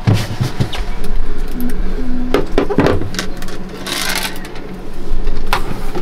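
Knocking and clicking of parts being handled and fitted during a boat refrigerator installation, with a short low hum about two seconds in and a brief hiss near the middle.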